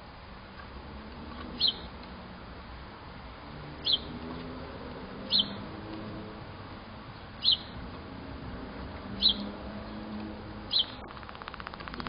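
A small animal chirping: six short, high single chirps, spaced about one and a half to two seconds apart, over a faint steady hum.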